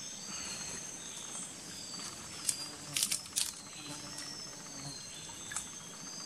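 Tropical forest ambience: a steady high-pitched insect drone with short falling chirps over it, and a quick cluster of sharp clicks about halfway through.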